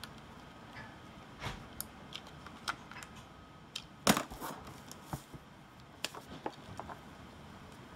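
Scattered clicks and taps of the massage gun's housing parts being handled and fitted together, with one louder knock about four seconds in.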